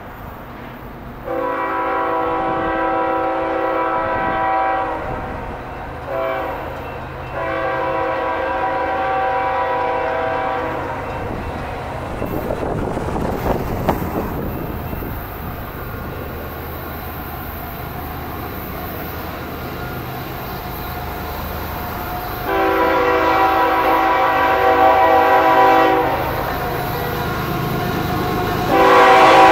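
Nathan K5HL five-chime air horn on a CSX GE ES44AC locomotive, blowing a series of long and short blasts as the coal train approaches. The last blasts, about three-quarters of the way in and at the very end, are the loudest. A low diesel rumble runs under the horn.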